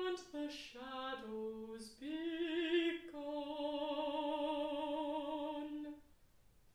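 Unaccompanied mezzo-soprano singing with vibrato: a quick run of short notes, then a long held final note that ends about six seconds in.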